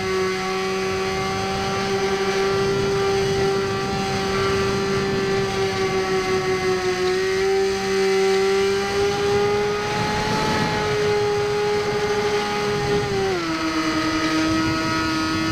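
Electric motor and propeller of a Firebird Stratos RC plane, heard from the plane's onboard camera, whining steadily over the rush of passing air. The pitch rises slightly about halfway through and drops near the end.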